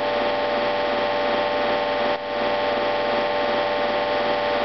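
Hydraulic pump of a Baldwin compression testing machine running steadily as it loads the press, a constant hum with several steady tones, dipping briefly about two seconds in.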